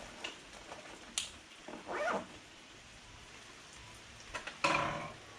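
Steady rain falling during a downpour, with a sharp click about a second in and two short pitched calls, one around two seconds in and a louder one near the end.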